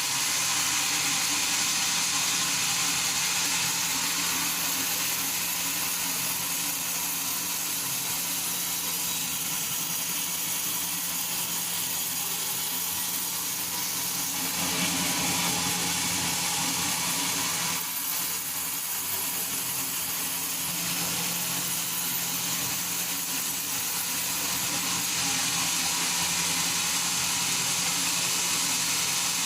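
Sawmill machinery running steadily: a constant motor hum under an even hiss, with a slight change in the middle and no distinct cuts or knocks.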